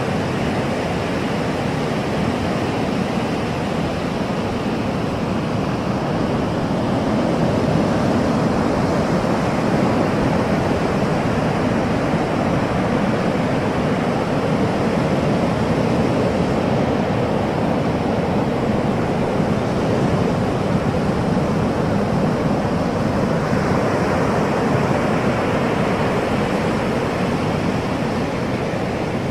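Ocean waves breaking and washing in surf, a continuous rushing that swells and eases slowly.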